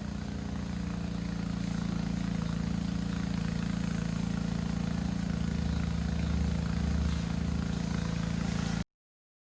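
A steady low machine hum, even in pitch, that cuts off suddenly near the end.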